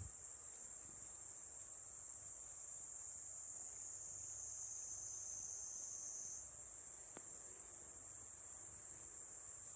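Steady, high-pitched chorus of insects, holding level throughout, with one faint tick about seven seconds in.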